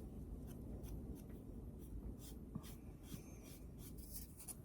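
Faint, irregular scratchy strokes of Distress Ink (Walnut Stain) being rubbed onto the edges of a small wooden bird cutout.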